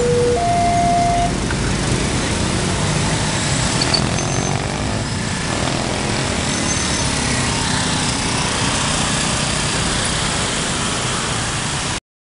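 Level-crossing alarm sounding its two-tone electronic beep, which stops about a second in, over steady road-traffic engine noise that carries on until the sound cuts off abruptly near the end.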